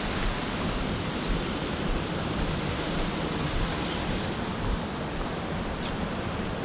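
Steady rushing noise of a flowing river heard from a bridge, with a faint click near the end.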